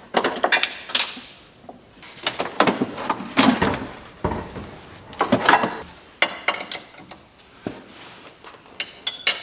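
Hand-tool work under a car's hood: irregular metallic clicks, knocks and short scrapes of tools and parts being handled, with no engine running.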